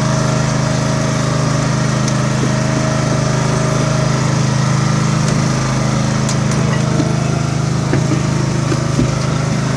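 Small fishing boat's engine running steadily at a constant low pitch, with a few light clicks over it.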